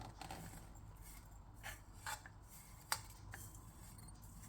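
A spoon scraping and clicking faintly a few times, scooping fried garlic into a glass jar of honey.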